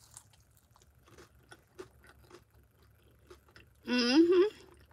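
Close-up mouth sounds of a person chewing a hash brown: faint, irregular soft crunches and clicks. About four seconds in comes a short hummed vocal sound with closed lips, louder than the chewing.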